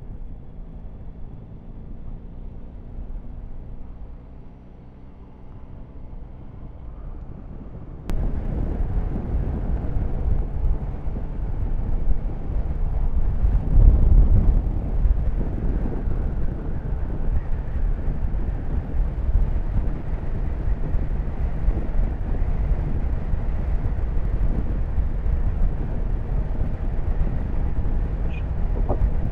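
Yamaha Tracer 9 GT's three-cylinder engine running under way, with wind rushing over the bike-mounted microphone. It is quieter at first and turns abruptly louder about eight seconds in, swelling briefly a few seconds later.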